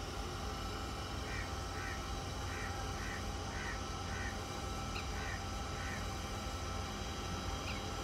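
Cockatiel giving a run of about eight short chirps, roughly two a second, starting about a second in and stopping around six seconds in, over a steady low background hum.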